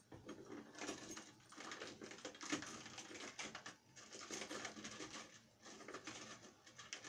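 Faint, irregular clicking and rattling of keys being handled and put back into a small homemade box.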